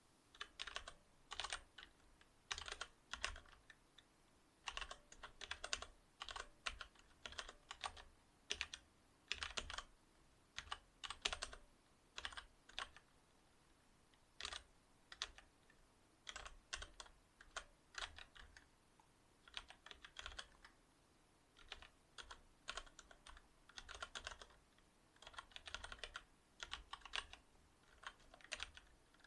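Typing on a Cherry MX Board 8.0 mechanical keyboard with Cherry MX Silver linear switches: quick runs of key clicks come in short bursts with brief pauses between them.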